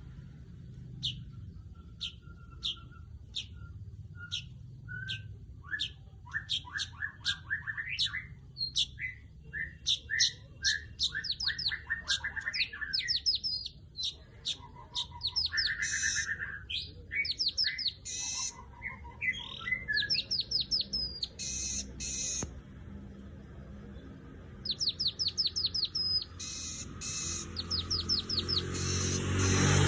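Asian golden weaver calling: a steady series of sharp 'cret' chirps that thicken into dense chattering, with fast runs of repeated high notes near the end.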